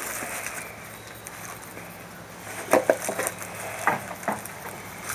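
Paper burger wrapper rustling as it is unfolded, with a few sharp crinkles about three and four seconds in.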